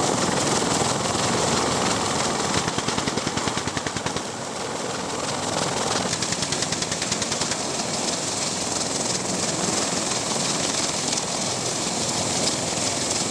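Steady helicopter noise with several bursts of rapid machine-gun fire over it, the longest about two and a half seconds in.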